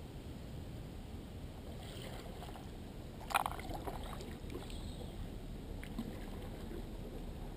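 Canoe being paddled, with steady water and hull noise and one sharp knock about three seconds in.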